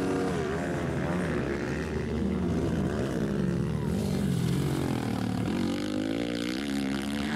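230cc four-stroke single-cylinder motocross bikes racing, the engines revving up and falling away again and again as the throttle is opened and closed.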